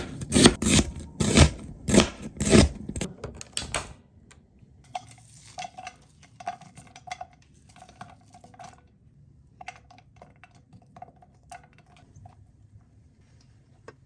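Chef's knife slicing through a red onion onto a plastic cutting board, crisp chopping strokes about two a second for the first four seconds. Then much fainter light taps and rustles as the onion slices are handled in a pan.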